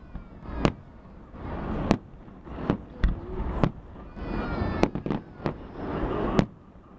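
Festive fireworks display bursting: about eight sharp bangs at irregular intervals, with crackling between them.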